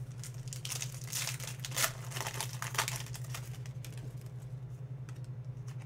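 Panini Contenders football card pack wrapper crinkling and tearing as it is ripped open, busiest in the first three seconds, then quieter rustling as the cards are handled. A steady low hum runs underneath.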